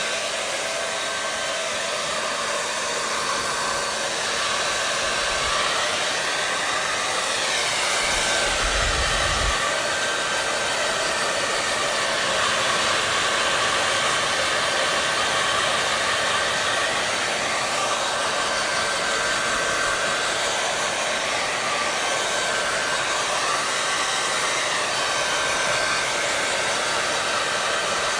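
Hair dryer running continuously: a steady, loud rushing of air with a faint steady whine and slow sweeping shifts in tone. There is a brief low rumble about nine seconds in.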